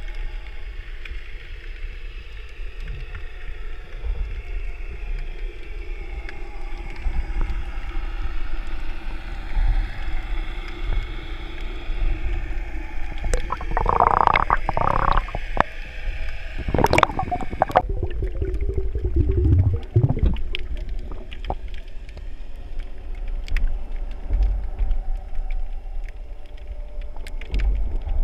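Underwater sound through a camera housing: a steady low rumble of moving water with faint droning tones that drift slowly in pitch. Louder gurgling bursts come about halfway through.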